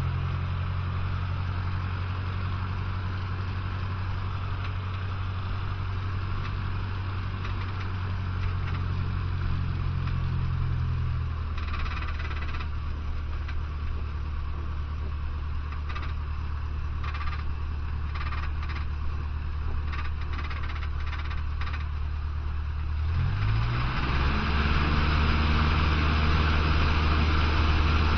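Cessna 150's four-cylinder Continental O-200 engine and propeller heard from inside the cockpit, running at low taxi power, with scattered clicks and rattles in the middle. About 23 s in the engine note rises in pitch and gets louder as the throttle is opened.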